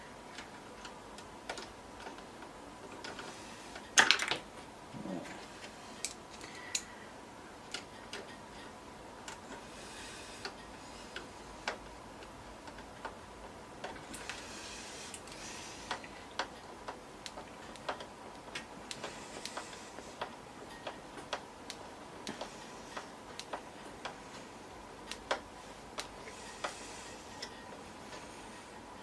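Screwdriver driving the screws that hold a replacement power supply into a desktop PC's metal case: scattered small metallic clicks and ticks, with a louder knock about four seconds in.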